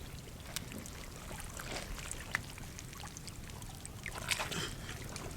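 Faint trickling of shallow water, with a few small splashes.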